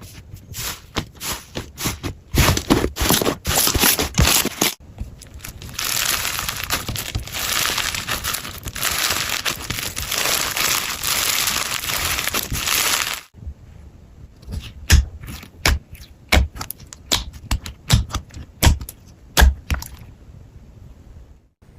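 Slime being squeezed and pressed, giving crisp clicks and crackles. A dense continuous crackle runs from about six to thirteen seconds, then thins to scattered sharp pops.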